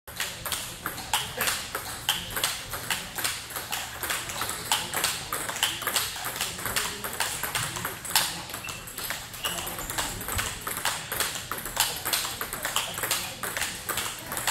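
Table tennis ball rallied back and forth, clicking off the rackets and bouncing on a Butterfly table in a quick, steady rhythm of about three knocks a second.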